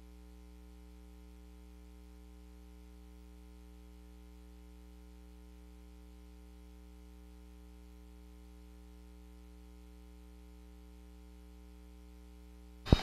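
Steady electrical mains hum with a faint hiss over a blank stretch of videotape. Near the end a sharp click cuts in as the next recording begins.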